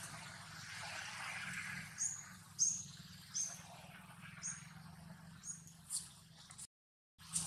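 A series of short, high chirping calls from a small animal, about seven of them at uneven intervals, each dropping slightly in pitch. The sound cuts out briefly near the end.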